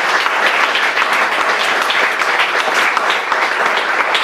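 Audience applauding: many people clapping together in a dense, steady round of applause.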